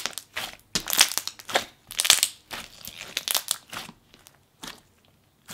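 Thick, jiggly purple clear slime squeezed and pressed flat by hand, giving an uneven series of short, sticky squishing sounds that thin out near the end.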